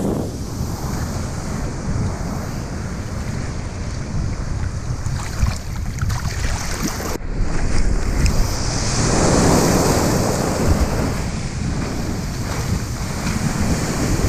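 Ocean surf breaking and foam rushing around a microphone held low in the water, with heavy wind buffeting on the microphone. A louder surge of rushing water comes about nine seconds in.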